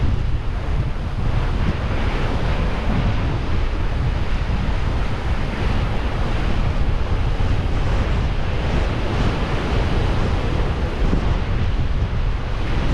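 Sea surf surging and churning through a narrow limestone rock inlet: a steady rushing wash of breaking white water with a deep rumble underneath. Wind buffets the microphone.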